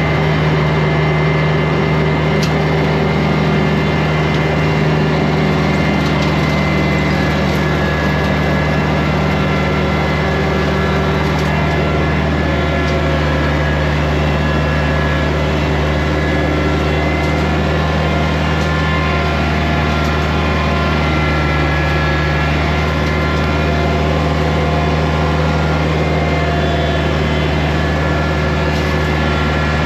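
Kubota 2150 compact diesel tractor running steadily at working speed with a Land Pride rotary brush cutter engaged, mowing grass and brush. A steady drone with a few faint ticks.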